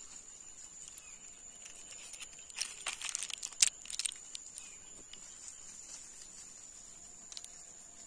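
Steady high-pitched insect trill from crickets or cicadas, with a short run of dry crackles and clicks from about two and a half to four seconds in, one sharp click loudest.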